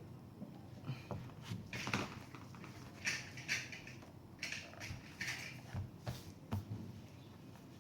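Light clicks and short scraping rustles of small parts being handled while working on an open laptop, over a low steady hum.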